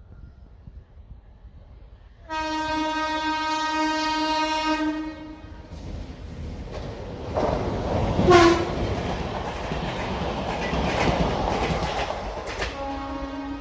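Indian Railways WAP-7 electric locomotive sounding its horn in one long blast of about three seconds. The parcel train then passes close by with a steady rumble of wheels on rail, and brief horn notes sound in the middle and again near the end.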